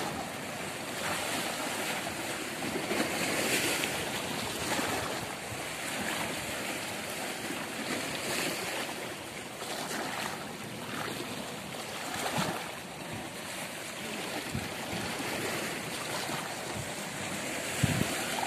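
Sea waves washing and swelling in uneven surges, with wind on the microphone. A short low thump near the end.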